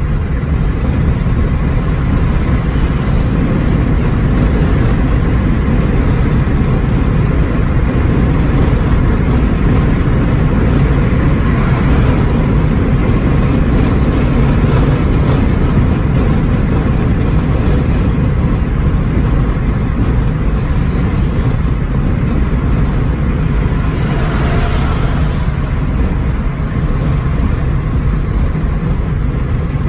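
Steady low rumble of a car driving at cruising speed, heard from inside the cabin: tyre, engine and wind noise.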